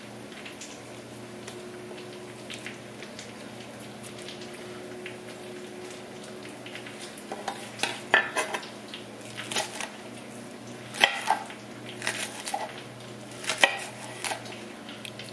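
Chef's knife slicing green onions on a wooden cutting board: irregular knocks of the blade on the board begin about halfway through, over a steady low hum.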